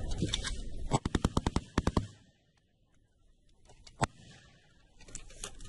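Belt-fed machine gun firing one rapid burst of about a dozen rounds, starting about a second in and lasting about a second. A single sharp shot follows about four seconds in.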